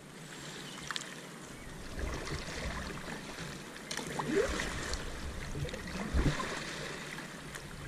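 Double-bladed paddle strokes from an inflatable kayak, the blades dipping and splashing in calm river water, louder about four and six seconds in.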